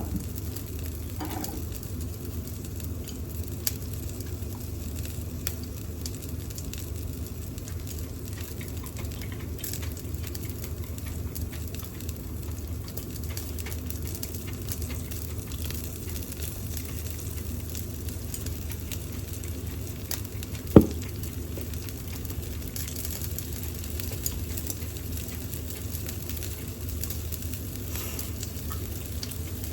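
Pork and onion skewers sizzling steadily on an electric shichirin grill, with fine scattered crackles, over the steady low hum of a range hood fan. A single sharp knock about 21 seconds in.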